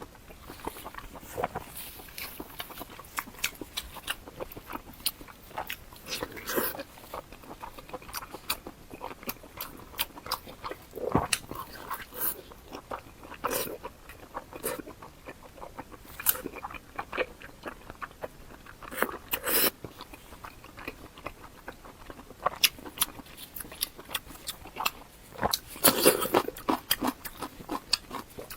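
A person biting and chewing food, with many irregular crunches.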